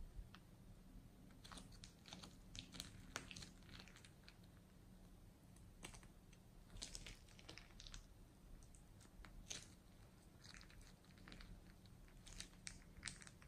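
Faint, irregular crinkling and crackling of a plastic piping bag filled with foam beads as it is squeezed and the beads are pushed out.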